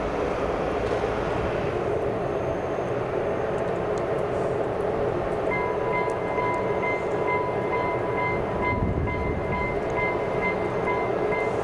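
Train running on the tracks with a steady rumble. About halfway through, a high ringing tone starts and pulses on and off evenly.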